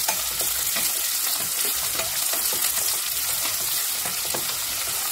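Chopped onion and tomato sizzling steadily in hot oil in a pressure cooker, with a wooden spatula stirring and scraping against the pan in many small ticks.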